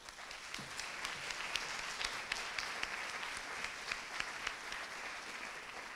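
Audience applauding: a dense patter of many hands clapping that starts abruptly and eases off slightly near the end.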